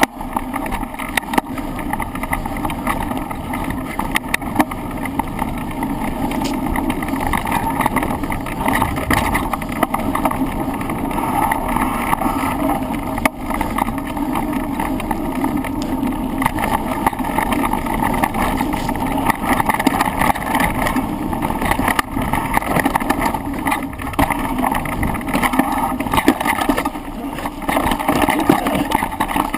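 Continuous rushing noise and frequent small knocks and rattles picked up by a handlebar-mounted camera as a bike runs fast down a descent.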